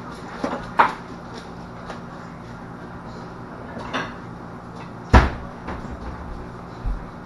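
Kitchen cabinets and drawers being opened and shut while a spoon is fetched: several knocks and clicks, the loudest a heavy thump about five seconds in.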